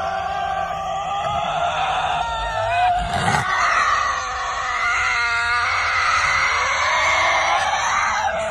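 Long, loud wailing animal calls, several voices overlapping, their pitch wavering and gliding.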